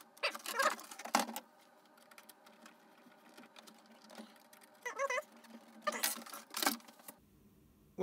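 Clicks, taps and knocks of a hard plastic RC crawler body shell being handled and fitted with small parts, with a few short warbling chirps among them.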